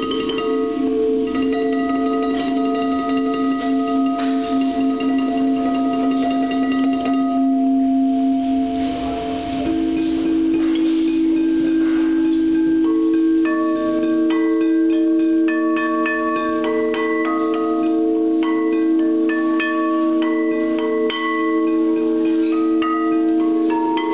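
Crystal singing bowls ringing: several long, steady tones held together, with the drone shifting to a new pitch about ten seconds in. Short, higher tapped notes chime over them, more often in the second half.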